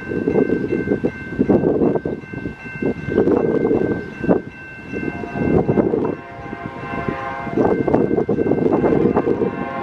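Nathan K5LA five-chime horn on an approaching Amtrak P42DC locomotive sounds one blast of about two seconds, a little past halfway through. Wind rumbles on the microphone throughout, over faint steady high tones.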